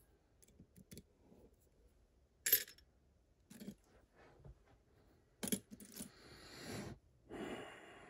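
Small metal clicks and clinks of lock-picking tools being handled and fitted into a lock cylinder's keyway: a tension tool going in and then a pick. The sharpest clink comes about two and a half seconds in, more clicks follow a few seconds later, and scraping and rustling fills the last two seconds.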